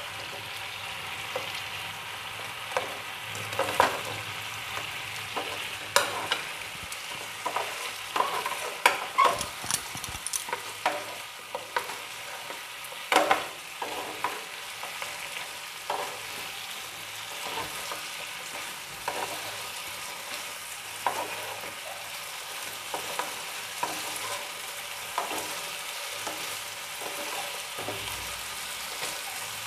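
Fried chicken pieces sizzling in a hot sauce in a nonstick frying pan while a spatula stirs and tosses them. The steady sizzle is broken by frequent irregular knocks and scrapes of the spatula against the pan, busiest in the first half.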